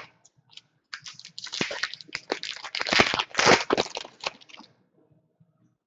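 Foil wrapper of a hockey card pack crinkling as it is opened and crumpled in the hand: a dense run of crackles that starts about a second in and stops after nearly four seconds.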